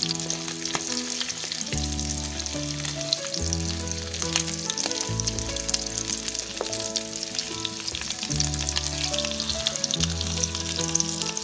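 Boiled potato pieces sizzling and crackling in hot oil with cumin seeds in a nonstick pan, stirred with a silicone spatula. Background music with long held chords plays underneath.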